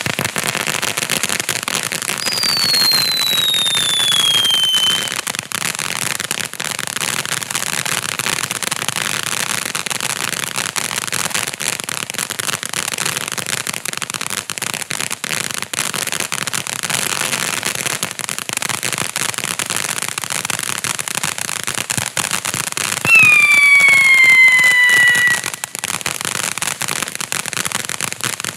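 Black Cat Neighbor Hater ground fountain firework spraying sparks, a steady crackling hiss throughout. Two falling whistles cut through it: one about two seconds in, lasting about three seconds, and a louder, lower one near the end, lasting about two seconds.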